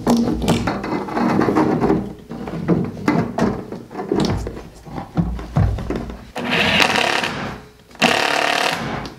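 Metal furnace case being handled, knocked and slid about on a plywood floor, with scraping and rubbing. Near the end, a power drill runs twice briefly, as when driving screws.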